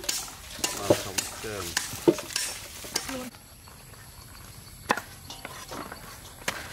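Wet squelching and rustling as eels are scrubbed with handfuls of leaves in a metal bowl, with clinks against the bowl. About three seconds in it gives way to a quieter stretch with a few single knocks of a cleaver and knife cutting banana flowers on wooden chopping boards.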